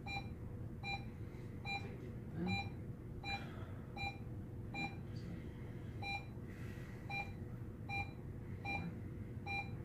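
Pulse oximeter beeping with each heartbeat: a short, evenly spaced tone a little faster than once a second, marking a pulse of roughly 75 beats a minute.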